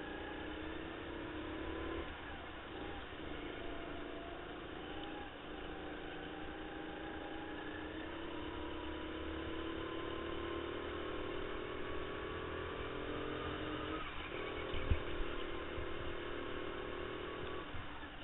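Indoor racing go-kart at speed. Its motor's pitch climbs slowly along the straights and drops sharply several times as it slows for corners. A sharp thump about fifteen seconds in is the loudest moment.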